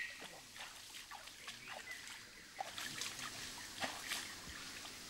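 Hand scooping and splashing water in a shallow stream: irregular small splashes, drips and trickles. A bird gives a single falling whistle right at the start.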